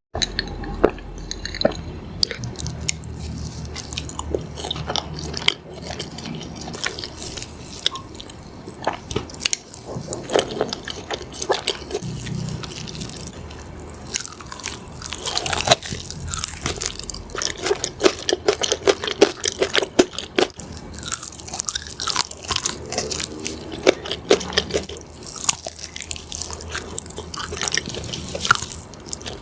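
Close-miked ASMR eating sounds: repeated crunchy bites into a chicken burger and chewing, with many crisp crackles throughout.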